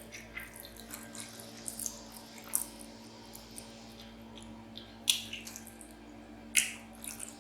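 Wet mouth clicks and smacks of someone chewing a mouthful of cheesy macaroni and cheese close to the microphone, with a few sharp smacks in the second half. Under them runs the steady low hum of a lawn mower.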